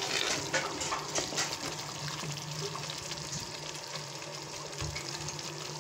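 Wet curry masala of ground onion, garlic, ginger and tomato paste sizzling and bubbling in hot oil while a wooden spatula stirs it, with scattered crackles that are thickest in the first second or two. This is the bhuna stage, where the masala is fried until the oil separates.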